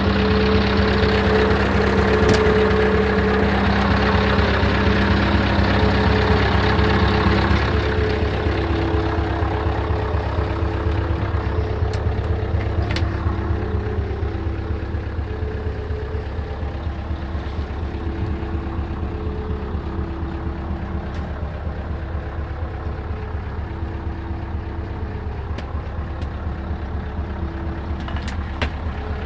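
Scania R 500's 15.6-litre V8 diesel engine idling steadily. About eight seconds in it becomes quieter and more muffled, as heard from inside the cab.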